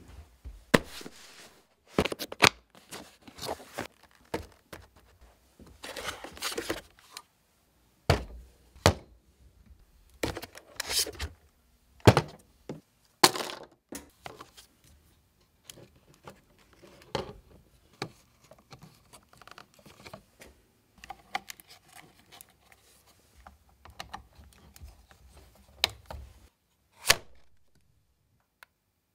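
Quadcopter drone parts and its foam carrying case being handled: a run of separate knocks and clicks with short rustling scrapes of foam and plastic.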